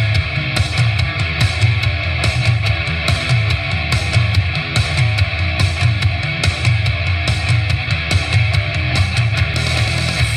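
Music played loud through a Bumpboxx boombox speaker, with heavy bass and a steady drum beat.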